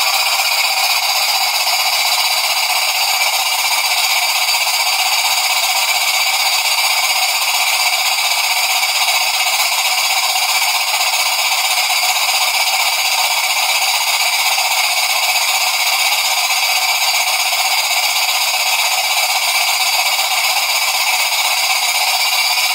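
Steady hiss of exhaust steam from a Jensen 20G toy steam engine running with its steam valve fully open, blowing out through a Steam Demon chuff pot.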